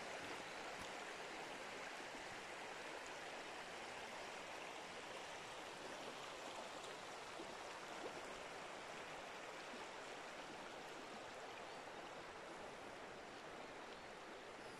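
Shallow braided-river channel flowing over gravel: a steady, soft rush of running water that fades slightly toward the end.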